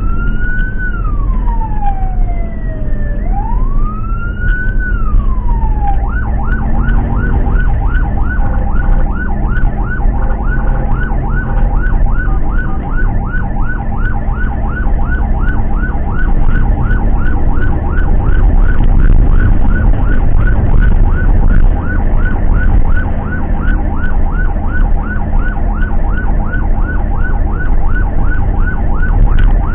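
Ambulance siren heard from inside the cab, wailing in slow rising and falling sweeps, then switching about six seconds in to a fast yelp of about three short sweeps a second. Under it runs the van's engine and road noise.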